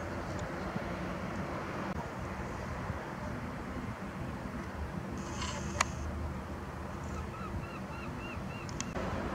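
Steady outdoor noise with a low hum underneath, a single sharp click about six seconds in, and a quick run of repeated bird calls near the end.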